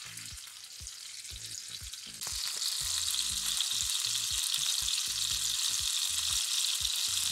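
Duck breasts sizzling in rendered duck fat in a frying pan over high heat as they are seared. The sizzle jumps louder about two seconds in, then holds steady.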